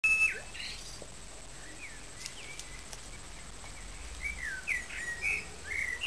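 Small birds calling: a short high note right at the start, then scattered brief chirps and warbling notes that come thickest in the last two seconds.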